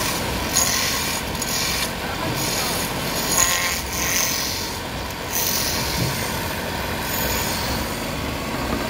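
Belt-driven wood lathe running steadily while a hand-held chisel cuts a spinning wooden rolling-pin blank, the cutting heard as several short rasping passes, mostly in the first half.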